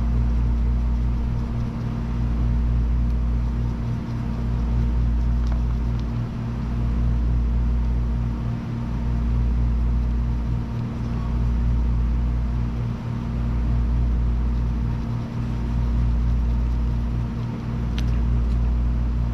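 A steady low rumbling hum that swells and eases about every two seconds, with a faint click near the end.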